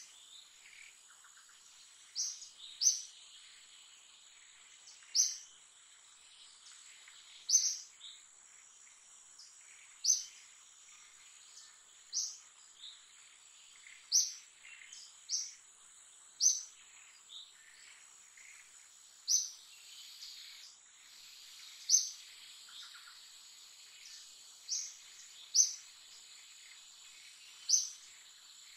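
Forest ambience: a bird gives a short, sharp, high call over and over, every one to three seconds, above a steady high-pitched insect drone.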